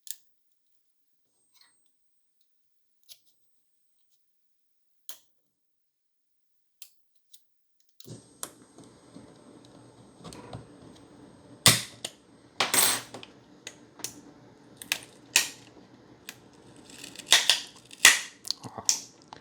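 Plastic case of an Xbox One S internal power supply being pried apart: sharp cracks and snaps of the clips and shell. A few isolated clicks come first, then from about halfway through a denser run of louder snaps.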